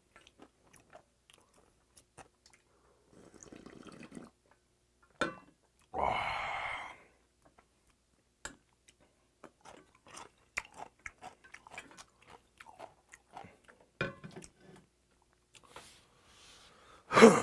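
A person eating cold arrowroot noodles with chopsticks: small wet chewing and mouth clicks, a loud slurp about six seconds in, and a louder knock near the end.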